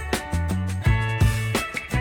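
Background music with a bass line and a regular drum beat.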